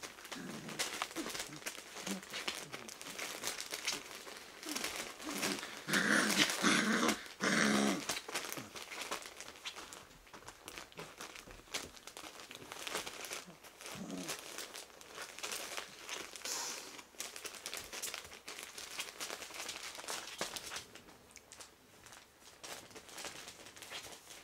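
Puppies about three and a half weeks old playing, with constant rustling and crinkling of newspaper and scratching of paws. About six seconds in there is a louder burst of small puppy growls and yaps, and another short puppy sound a little later.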